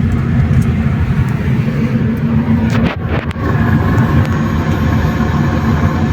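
Alfa Romeo 147 Twin Spark's four-cylinder petrol engine running, a continuous low rumble that dips briefly about three seconds in, with a few clicks, then carries on with a steadier tone; the car is running on its newly fitted fuel pump.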